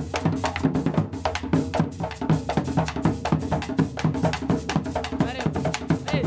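Background music with a fast, steady drum beat, with a couple of short sweeping tones near the end.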